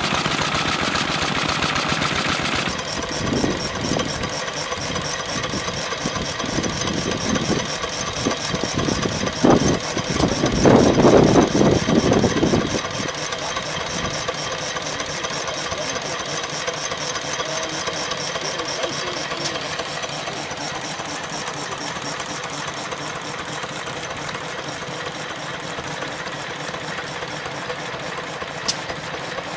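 Small vintage stationary engines running, each firing stroke heard in a fast, even ticking beat. The first few seconds are a harder, rapid firing that cuts to the steadier beat, with a louder, rougher spell for about three seconds near the middle.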